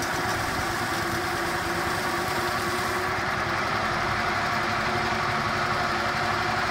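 Motor-driven grape crusher with a wooden hopper running steadily: an even mechanical hum with several held tones.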